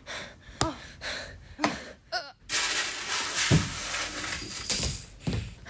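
A couple of short vocal grunts or gasps, then a loud crash that runs on for about three seconds as a dense, noisy clatter with a couple of low thuds in it.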